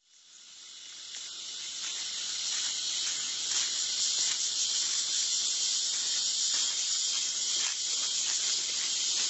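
Dense, steady high-pitched insect chorus of tropical rainforest, fading in over the first two seconds.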